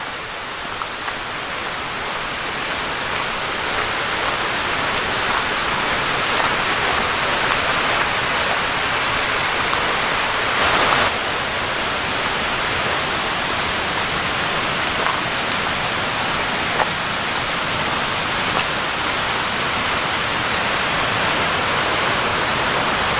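Waterfall rushing, a steady hiss of falling water that grows gradually louder throughout, with a brief swell about eleven seconds in.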